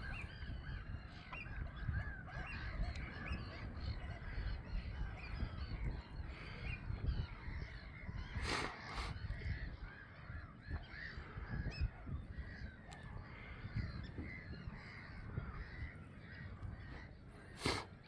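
Many gulls calling at once, a continuous chatter of overlapping squawks and cries, over a low rumble. Two brief knocks, one about halfway through and one near the end.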